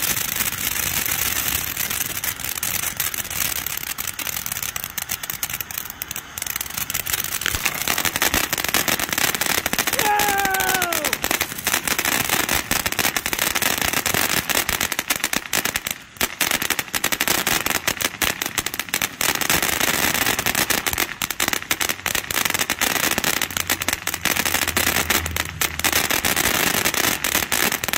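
Ground fountain firework (Santan Fireworks N1K2-Shinden Kai) burning: a steady loud hiss of spraying sparks with dense crackling throughout.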